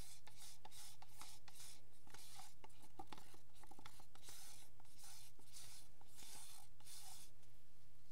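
Wooden craft stick scraping thick acrylic paint out of a plastic cup, an irregular run of scratchy strokes, over a steady low electrical hum.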